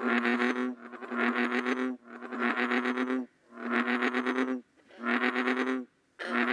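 American bullfrog giving its jug-o-rum call: a steady series of deep notes about a second long, separated by short gaps.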